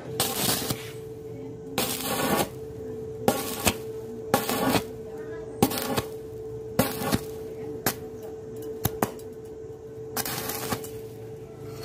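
Stick (SMAW) welding arc on thin galvanized steel pipe, struck in short bursts: about a dozen brief crackling arcs, each under a second, with pauses between. It is tack-by-tack stitch welding so that the sub-1 mm pipe wall does not burn through. A steady hum runs underneath.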